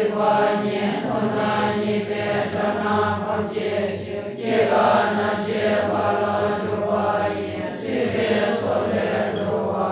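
A group of Buddhist nuns chanting prayers together, a continuous recitation held on a steady low pitch.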